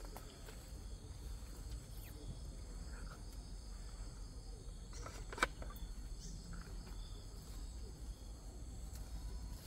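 Steady high chirping of insects, with one sharp click a little past halfway.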